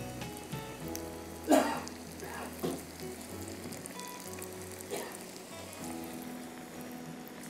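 Breadcrumbed red snapper fillet frying in hot oil in a pan, sizzling and bubbling steadily, with a few sharp clacks, the loudest about a second and a half in.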